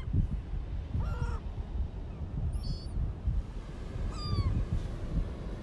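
Seagulls calling: three short mewing cries about a second and a half apart, each sliding slightly down in pitch, over a steady low rumble.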